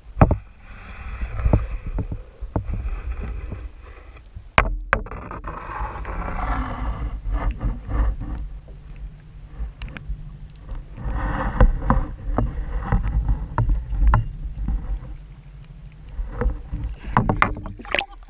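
Muffled boat and water noise heard through an underwater camera: a steady low hum from the boat, with water washing and bubbling over the housing and scattered knocks.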